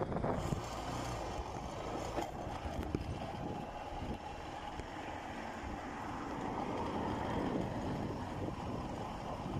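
Steady noise of a car driving along a road: engine and tyre noise with no sharp events.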